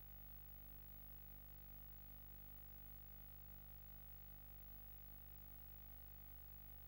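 Near silence: only a faint, steady low hum.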